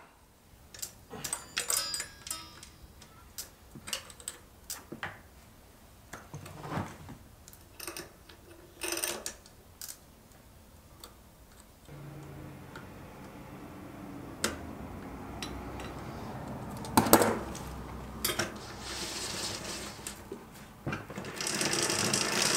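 Scattered metal clicks and clinks of hand tools and a steel roller chain being handled as the drive chain is fitted onto a Puch moped's rear sprocket. The clicking is sparse at first; about halfway a steadier background noise comes in, with one louder clack about three quarters in and a hiss rising near the end.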